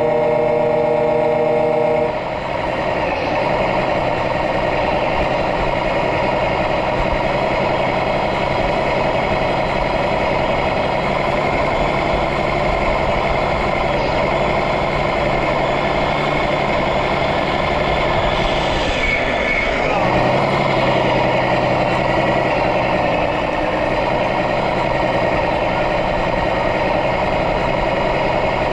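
RC model truck's electronic sound module playing a steady diesel truck engine. A held tone of several pitches sounds over it for the first two seconds, and there is a brief hiss about 19 seconds in.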